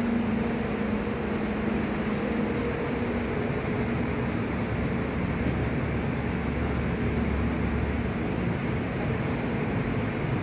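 Steady hum and rush of air from the Hyundai H350 van's air conditioning running in the cabin. A steady humming tone in it fades after about three seconds.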